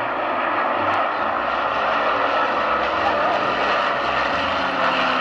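The four Rolls-Royce Merlin V12 engines of an Avro Lancaster and the Rolls-Royce Griffon of a Spitfire, flying past together: a loud, steady drone of piston aero engines that swells over the first second and then holds.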